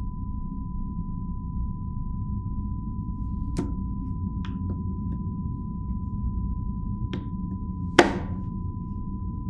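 A kitchen knife chopping through a bar of dark chocolate onto a wooden cutting board: a few sharp, separate chops, the loudest about eight seconds in. Behind them runs a low drone with a steady high tone.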